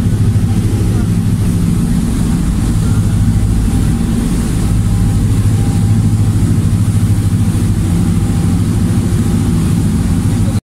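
A passenger ferry's engines running, heard on deck as a loud, steady low hum with an even hiss over it.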